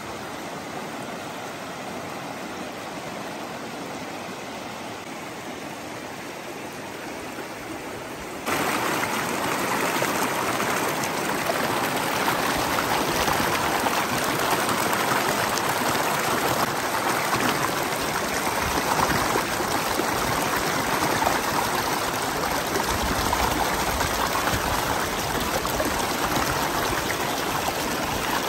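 Shallow rocky river rushing over boulders, a steady wash of water that gets abruptly louder about eight seconds in.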